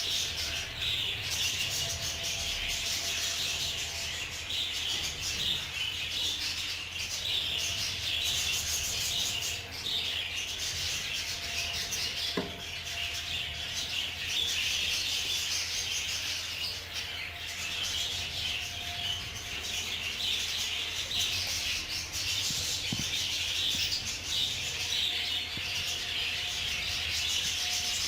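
A flock of budgerigars chattering and chirping without a break.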